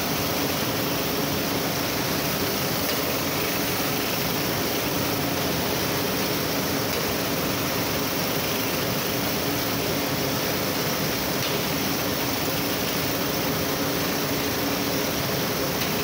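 Steady roaring rush of flame and hot gas blowing out at a blast furnace taphole past the taphole machine, with a faint low hum underneath.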